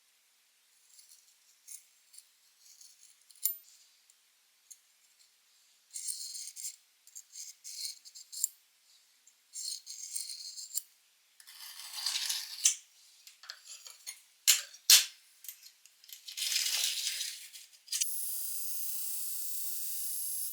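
Hand-sanding a steel cleaver blade: irregular rubbing strokes and scrapes, each about a second long, with sharp clicks and two louder taps near the middle.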